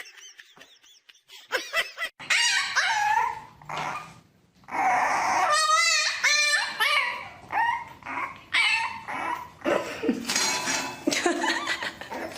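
A dog vocalizing in a run of short barks, yips and whines, starting about a second and a half in, with a brief pause near the middle.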